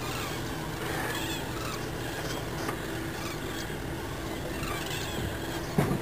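Wetland birds calling faintly at a distance over a steady low hum, with one louder call that falls steeply in pitch just before the end.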